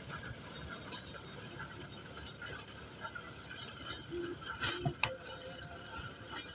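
Ford tractor's engine running under load as its rear-mounted rotavator churns dry soil, a steady mechanical rumble with a faint whine above it. A brief, louder knock or clank comes about three-quarters of the way through.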